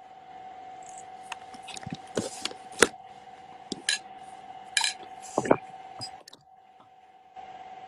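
A scatter of sharp clicks, knocks and short scrapes, like small objects or a phone being handled, over a faint steady hum.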